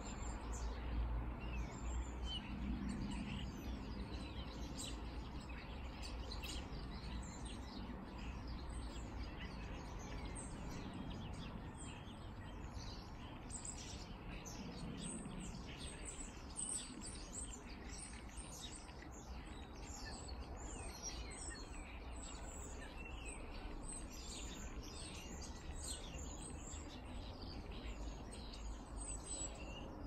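A flock of birds chirping at once: a dense stream of short, high calls that grows busier about halfway through, over a low steady rumble.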